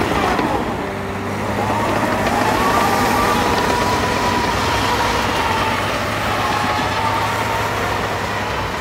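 Caterpillar 953D track loader's diesel engine running as the machine drives closer, with a whine that rises and falls in pitch over it.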